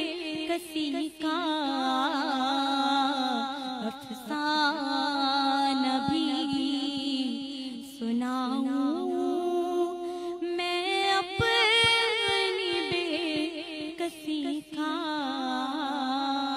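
A woman's solo voice singing a naat, an Urdu devotional poem, with no instruments: long held notes with wavering, ornamented turns, broken by short breaths.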